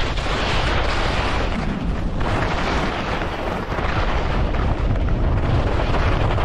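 Wind buffeting the GoPro's microphone at skiing speed, a continuous rumble, under a steady hiss of skis sliding over the snow.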